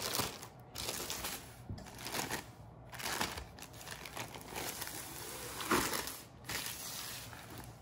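Thin clear plastic sleeve crinkling and rustling in irregular bursts as it is pulled off a rolled canvas.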